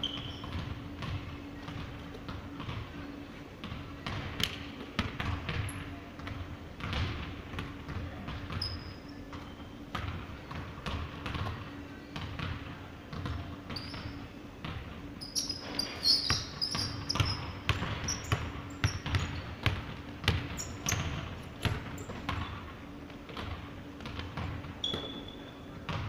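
Basketball bouncing and dribbling on a hardwood gym floor during a pickup game, in irregular sharp thuds, with short high sneaker squeaks, most of them about halfway through.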